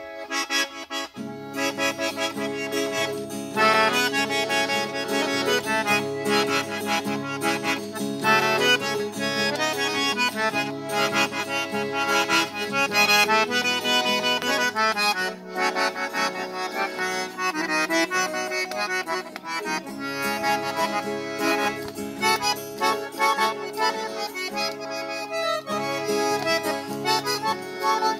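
Piano accordion playing a slow, soulful Avar folk melody, with its bass notes coming in about a second in, accompanied by an acoustic guitar.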